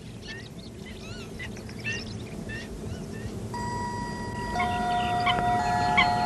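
A soundtrack fading in: short bird-like chirps over a low rumble. A few seconds in, several steady electronic tones take over, and near the end a regular pulse starts, about one every 0.7 seconds.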